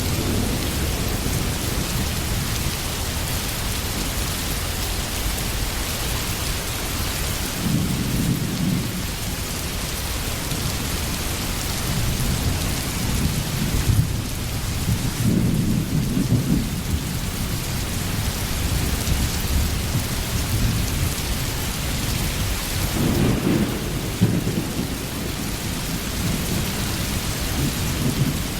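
Steady heavy rain with low rolls of distant thunder, three of them: about a quarter of the way in, midway, and about three quarters through.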